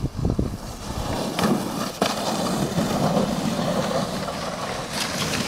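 Plastic sled hissing and scraping as it slides fast over snow, growing louder about a second in, with a few sharp knocks along the way; the sound cuts off abruptly at the end.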